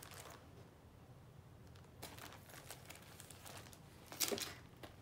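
12×12 inch plastic craft stencils in clear packaging being handled and slid across a table: faint rustling and crinkling of the plastic sheets, with a louder crinkle about four seconds in.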